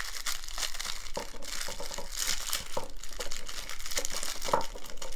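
Plastic bubble wrap crinkling and crackling in irregular bursts as hands unwrap a small aluminium motorcycle spotlight.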